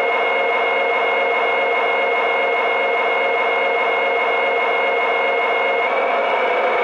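Electronic diesel locomotive engine sound played through the small onboard speaker of an MTH RailKing O gauge SD45 model locomotive. It is a steady, unchanging drone at a held throttle notch, thin and without deep bass.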